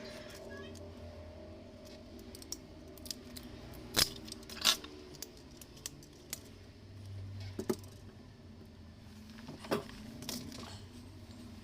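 Scattered sharp clicks and metallic clinks of small tools and parts being handled, as in phone repair work, the two loudest about four seconds in, over a low steady hum.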